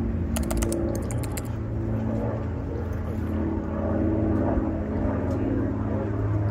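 Small multi-rotor drone's motors and propellers whirring steadily, several close pitches wavering against each other over a low hum.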